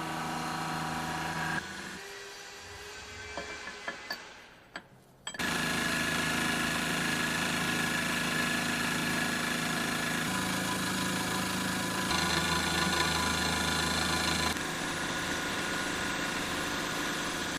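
Milling machine running while cutting steel bar stock, a steady machine whine in several spliced segments. It is quieter with a few clicks for a few seconds, comes in loud and steady about five seconds in, and shifts in pitch abruptly a few times.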